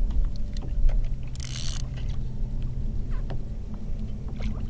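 Water lapping and small knocks against a plastic kayak hull while a redfish is played on rod and reel, with a short burst of hiss about a second and a half in.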